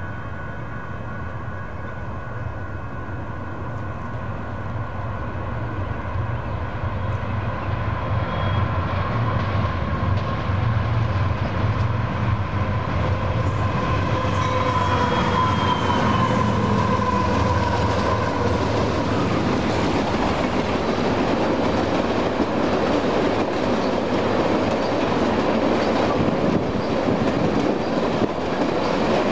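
Union Pacific freight train with four diesel locomotives approaching and passing, growing louder over the first several seconds. The locomotives' rumble carries a steady tone that drops in pitch as they go by about halfway through, followed by the rumble and clatter of a long string of tank cars rolling past.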